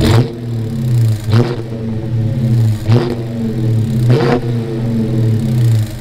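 A 2019 Dodge Charger Pursuit's 5.7-litre HEMI V8, warmed up and with its rear mufflers deleted, idling and blipped four times; each rev rises sharply and falls back to idle over about a second.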